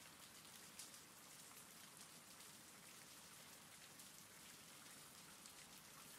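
Faint, steady rain falling.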